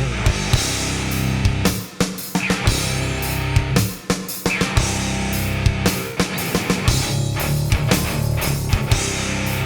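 Nu metal music: heavy guitars over a drum kit, with short stops about two and four seconds in.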